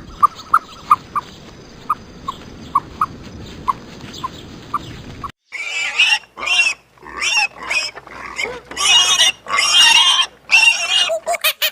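A run of short high peeps, about two a second, over a steady hiss. After a sudden cut, an animal squeals loudly in a string of harsh calls.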